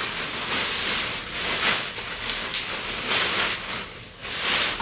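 Plastic wrapping on a folding heated clothes-drying rack rustling and crinkling in several swells as the rack is handled and unfolded.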